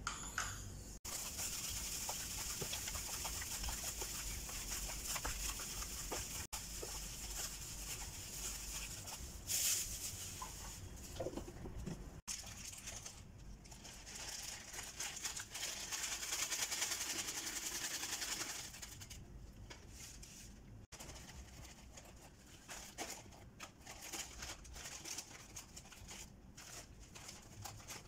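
Plastic bags crinkling and rustling as they are handled, with many small scattered crackles.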